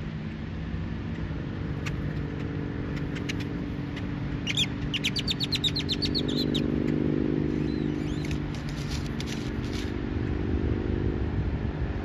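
A small bird sings a quick trill of a dozen or so rapid high notes lasting about two seconds, a little before the middle, with a few fainter chirps around it. Under it runs a steady low rumble that swells in the middle.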